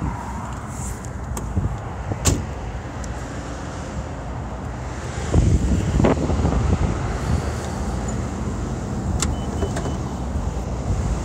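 Car door opening and closing as a person gets out: a sharp click about two seconds in and two heavy thuds between five and six seconds in, over a steady low rumble of wind and traffic.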